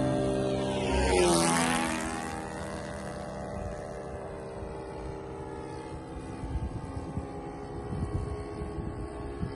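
Radio-controlled model airplane's engine and propeller at full power, loudest about a second in, when its pitch drops as it passes close, then fading to a steadier, quieter drone as the model climbs away.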